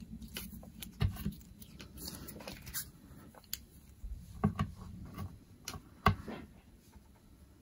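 Fingers kneading and squeezing a small ball of polymer clay to work pigment powder into it, giving soft, irregular sticky clicks and taps, a few of them louder.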